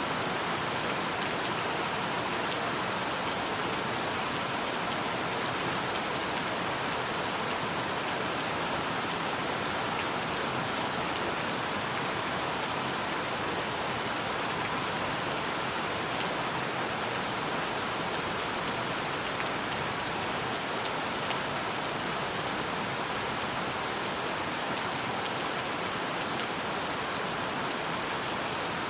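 Steady rainfall: a dense, even hiss of rain with scattered individual drop taps on top.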